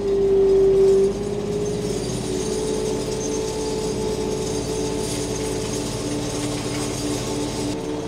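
Kioti tractor's diesel engine running steadily while towing a chain harrow, with the harrow's chains jingling and rattling over the soil. The engine is louder for about the first second.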